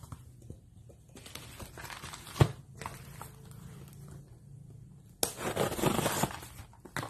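Cardboard parcel being handled and opened on bubble wrap: rustling and scraping of cardboard and packing tape, with one sharp knock about two and a half seconds in and a louder stretch of tearing from about five seconds in.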